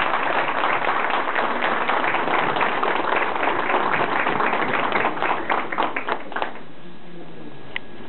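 Audience applauding, a dense patter of many hands clapping that thins to a few separate claps and stops about six and a half seconds in.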